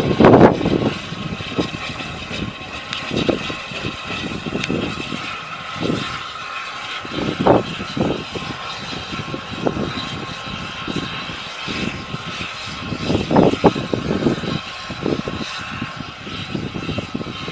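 Small steam tank locomotive (SE&CR Wainwright P Class 0-6-0T) moving slowly past with a brake van in tow, with a steady hiss and irregular low thuds. The thuds are loudest in the first second.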